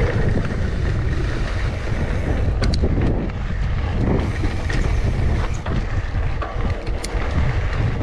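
Mountain bike riding down a dirt trail: a steady low rumble of wind on the action camera's microphone and tyres rolling over the ground, with a few sharp clicks from the bike.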